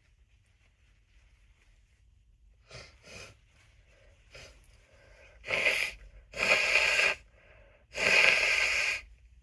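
A person blowing their nose: a few short, quieter sounds, then three loud blows, the last one the longest at about a second.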